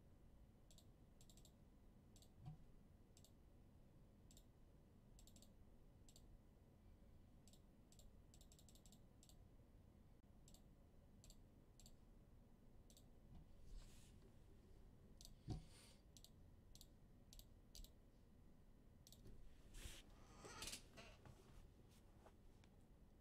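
Faint, irregular computer mouse clicks, some in quick runs of three or four. A soft knock comes about fifteen seconds in, and a brief rustle about twenty seconds in.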